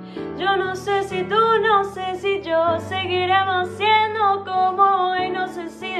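A woman singing a Spanish-language pop ballad over a backing track of held chords that change about every two and a half seconds.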